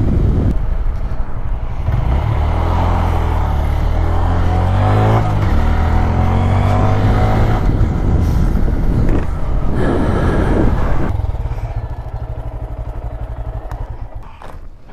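Motorcycle engine running as the bike is ridden, its note rising and falling, then growing quieter after about eleven seconds.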